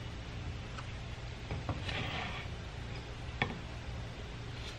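Wooden stir stick stirring thick oil-based paint in a paint can, with a few light clicks of the stick against the can, over a steady low hum.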